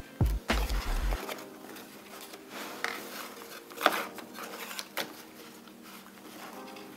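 Wax crayons and their cardboard box being handled on a table. A quick run of knocks and thuds comes in the first second as crayons are set down, followed by scattered light clicks and cardboard rustles as more crayons are pulled from the box.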